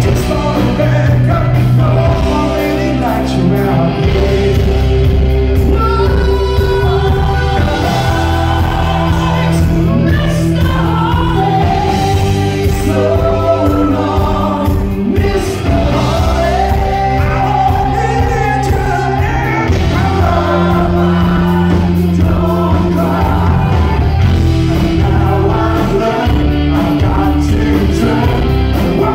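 Rock band playing live: a lead singer with backing vocal harmonies over electric guitars, bass and drums.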